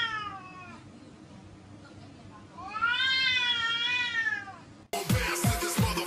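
A tabby cat yowling in a face-off with another cat: the tail of one long call at the start, then another drawn-out yowl about two and a half seconds in that rises and falls in pitch. These are the warning yowls of a standoff. Electronic dance music with a heavy beat cuts in suddenly near the end.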